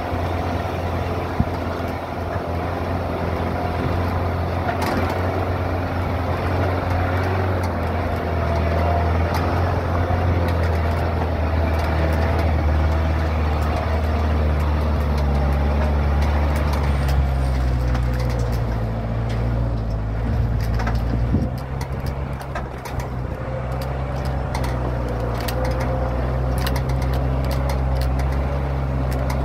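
Truck engine running as it crawls over a rough, rocky dirt road, its note rising about halfway through. Rattles and knocks from the jolting truck, more frequent in the second half.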